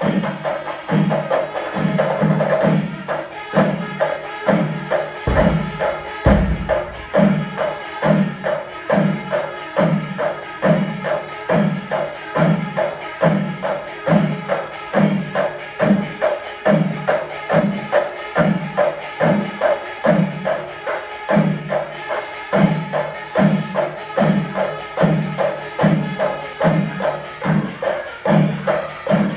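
Kerala temple chenda melam: chenda drums beating a steady pulse of about three strokes every two seconds, with elathalam hand cymbals clashing throughout. A held higher tone sounds over the first few seconds.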